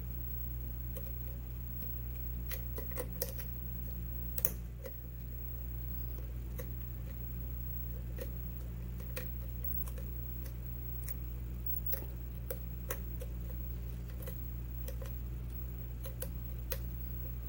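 Irregular light metallic clicks and ticks of a lock pick and tension wrench working the pins of an ABUS 80/45 padlock during single-pin picking, with a few louder clicks about three and four and a half seconds in, over a steady low hum.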